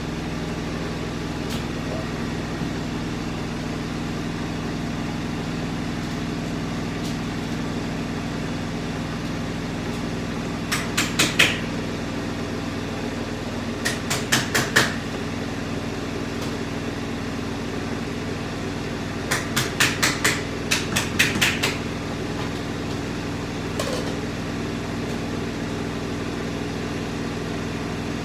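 A steady low hum, with four short runs of quick sharp knocks, a few in each run at about five a second, in the middle of the stretch.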